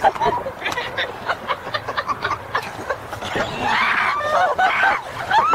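A person laughing in a high voice, while a canoe tips over with a man climbing into it.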